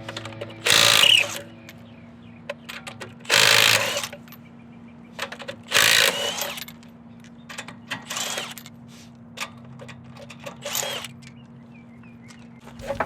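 Milwaukee M12 Fuel stubby 3/8" cordless impact wrench hammering on lug nuts in short bursts. There are three loud bursts of about half a second each, then two weaker ones, with light clicks and knocks between them.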